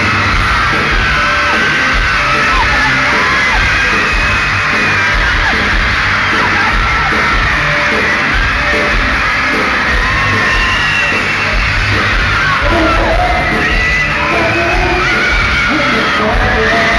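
Amplified pop-rock band playing live, nearly buried under a crowd of fans screaming close by, with many high-pitched shrieks throughout.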